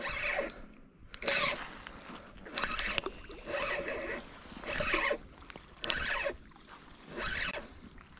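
A person breathing hard close to the microphone, one rushing breath about every second, with a single sharp click about three seconds in.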